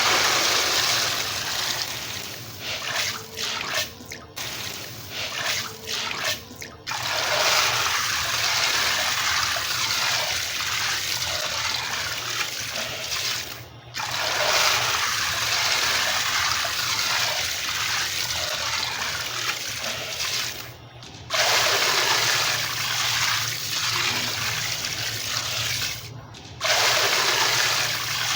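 Wet white concrete pouring into a large amount of water: a steady rushing splash that breaks off suddenly and starts again several times.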